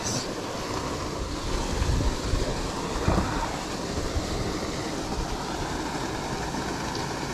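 Steady rushing noise of wind buffeting the microphone outdoors, with uneven low rumble and a couple of dull thumps about two and three seconds in.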